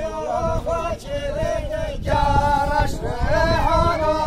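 Men's voices singing a chant-like govend dance song without instruments, the phrases rising and falling, over a steady low rumble.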